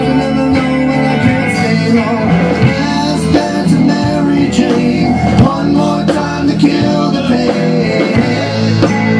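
A rock band playing live: an electric guitar, a Les Paul-style sunburst, over an electric bass and a Tama drum kit.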